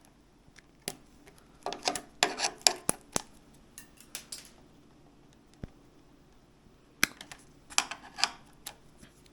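Sharp snips and clicks of plastic zip ties being cut and pulled off the scooter's stem wiring, in two clusters: one starting about two seconds in and another around seven seconds.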